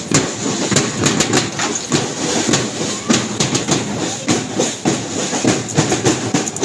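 Rapid, irregular clacking, several sharp knocks a second, over the noise of a street crowd.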